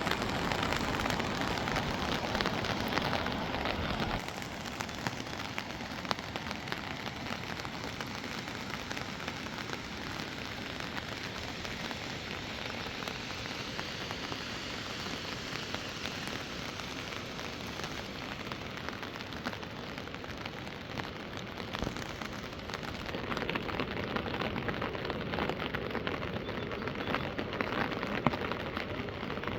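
Rain falling steadily, with many close drop hits; it eases about four seconds in and grows heavier again near the end.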